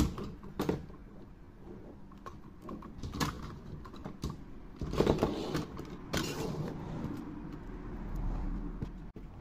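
Hard plastic segments of a Pets & Robo Alive toy snake being handled and pulled apart: irregular clicks, creaks and rubbing, loudest about five and again about six seconds in.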